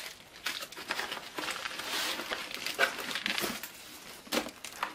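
Plastic wrap and a padded bubble mailer crinkling and rustling in the hands as a wrapped laptop is lifted out of a cardboard box, in irregular crackles.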